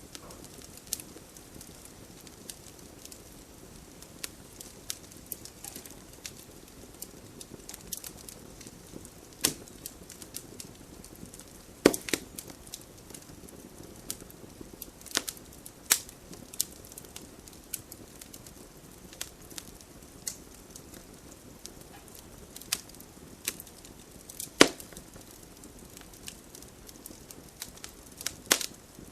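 Campfire burning: irregular crackles and sharp pops of burning wood over a low steady hiss, with a few louder pops, the loudest about twelve seconds in and near twenty-five seconds.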